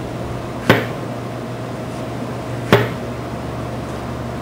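Kitchen knife slicing rounds off a peeled pineapple, the blade knocking sharply on the wooden cutting board twice, about two seconds apart, over a steady low hum.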